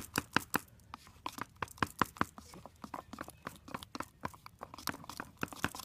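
Stir stick clicking against the sides of a plastic tub while stirring a thick homemade chalk paint: a rapid, irregular series of sharp clicks, several a second.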